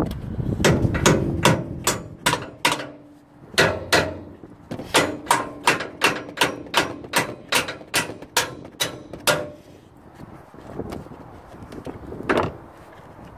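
A hammer striking the steel hinge pin of a folding excavator roll cage (ROPS). There are over twenty sharp blows, steady at about three a second through the middle, then a pause and one last blow near the end.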